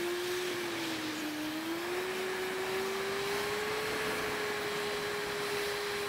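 Suzuki Bandit's inline-four engine running at low road speed, a steady note that dips slightly about a second in and then rises gently and holds, over a steady rush of wind and road noise.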